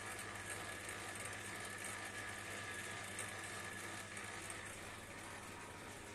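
A semi-automatic two-roller noodle-making machine running with a steady hum.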